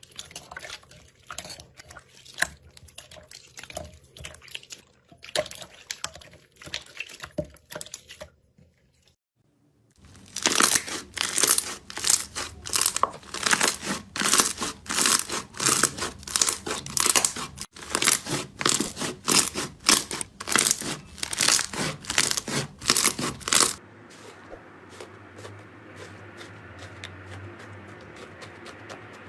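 Slime being worked by hand: soft clicks and pops, a short pause, then a long loud run of rapid crackling and popping that stops suddenly about three-quarters of the way in, leaving a faint steady hum.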